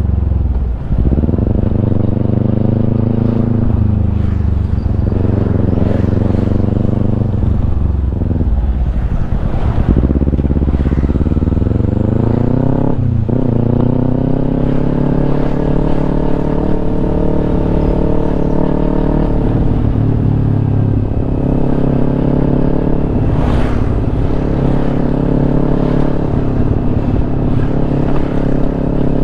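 Kawasaki Ninja 250 parallel-twin with a Yoshimura exhaust, being ridden through the gears. The engine note rises and falls several times, drops sharply at a shift near the middle, then climbs again and holds fairly steady.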